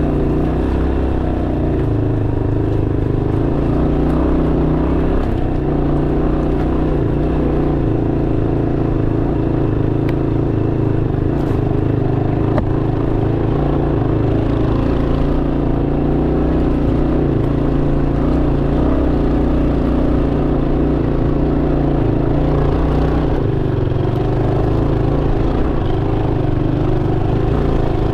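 Motorcycle engine running at fairly steady revs while the bike is ridden along a dirt trail.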